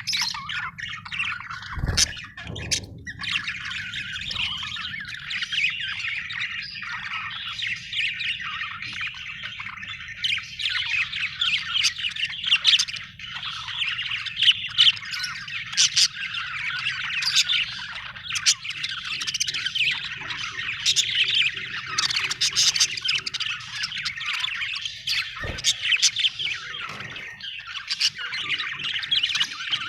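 A budgerigar chirping without pause, a stream of quick high chirps and sharp calls, the sound of a contented bird. Two dull thumps, one about two seconds in and one near the end.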